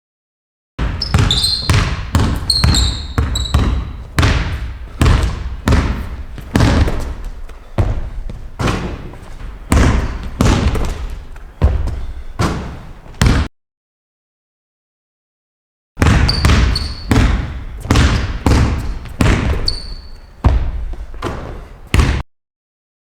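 A basketball being dribbled on a hard court, about two bounces a second, with short sneaker squeaks now and then. The sound drops out completely for a couple of seconds in the middle.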